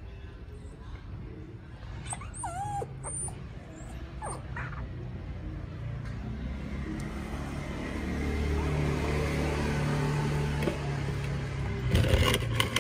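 Puppy whimpering in a few short, high, wavering squeaks in the first half. Later a low rumble swells and fades behind it, and a short clatter comes near the end.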